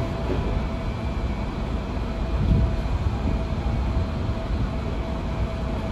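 Sotetsu 8000 series electric train heard from inside the passenger car, rolling slowly along a station platform as it comes in to stop. The sound is a steady low rumble of wheels and running gear, with a faint steady hum.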